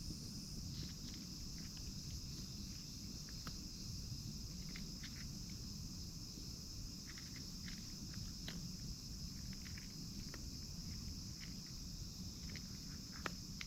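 Insects chirring steadily in a continuous high band, under a low rumble of wind, with scattered small clicks and taps throughout.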